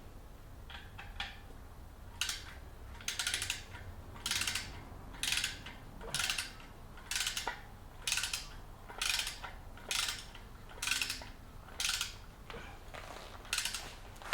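Socket ratchet clicking in short bursts about once a second, a dozen or so back-swings, as it runs down the rear sprocket bolts.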